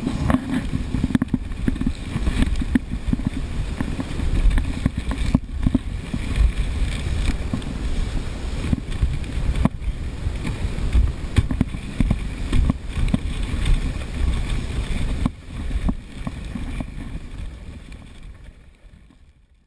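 Dog sled running over snow, heard from a camera on the sled: a steady rumble and hiss from the runners, with scattered knocks and jolts from the sled, and wind on the microphone. It dies away over the last few seconds.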